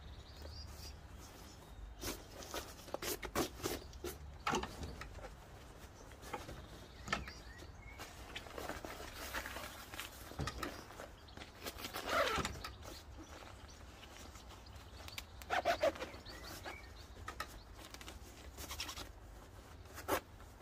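Rustling of a KTM Terra Adventure textile motorcycle jacket as it is handled, with scattered clicks and short zip and fastener scrapes while its pockets and flaps are closed.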